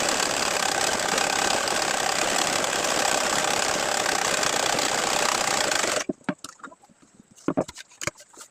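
Sewing machine running steadily as it stitches, then stopping suddenly about six seconds in, followed by a few scattered clicks and taps.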